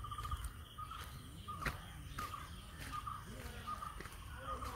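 Outdoor ambience with a bird calling repeatedly in short chirps, about two a second, and a few sharp knocks, the loudest about two seconds in.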